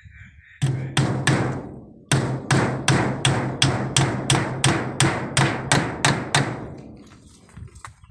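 Claw hammer striking split-bamboo slats on a pole frame, each blow with a short low ring. There are three blows, a short pause, then a run of about sixteen quick blows at roughly four a second.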